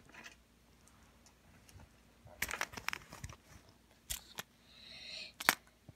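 Light clicks and rattles as a small clear plastic tackle box holding hooks and lead sinkers is handled, with a short rustle and then one sharp click near the end.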